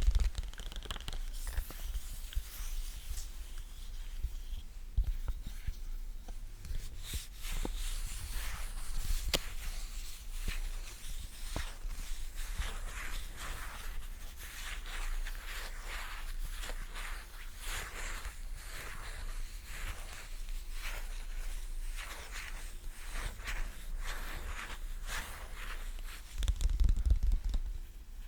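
Close-miked sticky ASMR sounds: tapping and peeling on a tacky surface, a fast irregular run of crackly clicks and small tearing sounds, with a louder low bump near the end.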